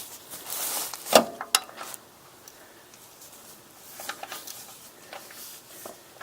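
Hand tools being handled: a rustle, then two sharp metallic clicks about a second in, followed by a few faint taps.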